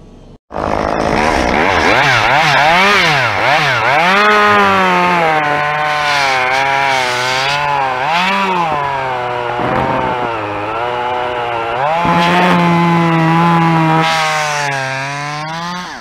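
Chainsaw cutting through a limb, its engine pitch sagging and recovering again and again as the chain bites into the wood. The sound starts abruptly about half a second in, and the saw runs steadier and higher for a couple of seconds near the end.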